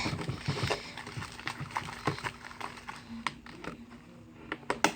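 Stirring utensil knocking and scraping in a bowl as fluffy slime of glue, shaving cream and borax is mixed: irregular light taps, several a second, easing off near the end.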